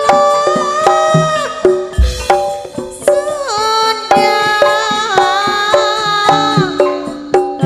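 Live campursari band playing: quick kendang hand-drum strokes under a sustained, sliding melody line, with a deep bass-drum thump about two seconds in.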